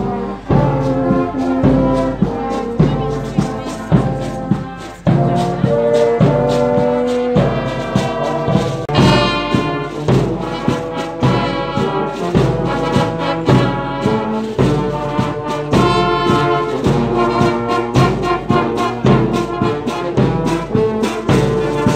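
Brass band playing a tune, with trombones and cornets carrying the melody over drums that keep a steady beat.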